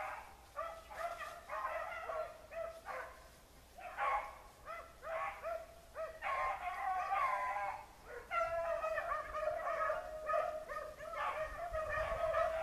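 A pack of beagles baying as they run a rabbit's scent trail, with cries coming in short, scattered bursts at first and then nearly continuous from about eight seconds in.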